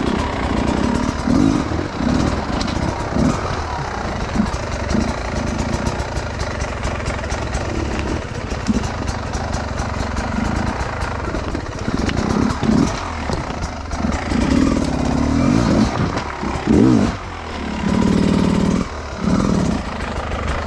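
Enduro dirt bike engine revving in short bursts while it is worked up a steep, rocky slope. The revs rise and fall repeatedly, with a higher rev held briefly near the end. Scattered knocks run through it.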